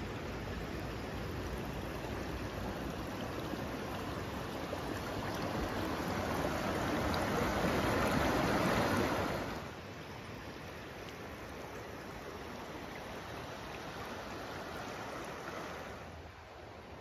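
Shallow river running over a stony bed: a steady rush of flowing water. It swells for a few seconds, drops suddenly about nine and a half seconds in, and falls lower again near the end.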